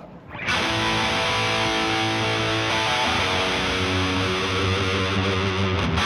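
Background music: distorted electric guitar rock, starting about half a second in.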